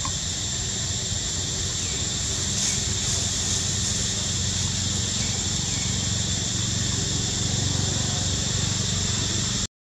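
Steady, high-pitched insect chorus of crickets or cicadas, with a low steady hum underneath; the sound cuts off abruptly near the end.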